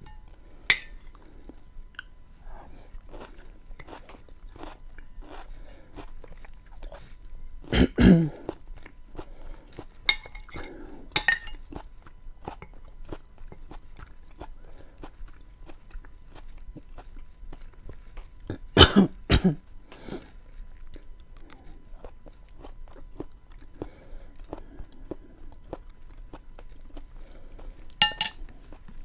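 Close-miked chewing and mouth sounds of someone eating beans with onion and tomato, made of many small wet clicks. Two louder bursts come about a third and two thirds of the way through, and a couple of sharp clicks come near the start and near the end.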